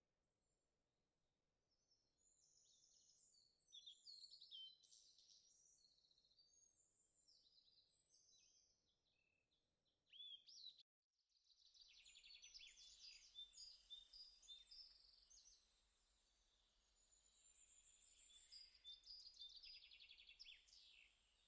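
Faint birdsong: many short chirps and trills from several birds, cut off for a moment about eleven seconds in.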